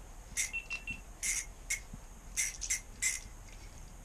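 Small ice-fishing reel being worked while a hooked trout is played, giving about eight quick, raspy clicking bursts at uneven intervals, with a brief thin squeak about half a second in.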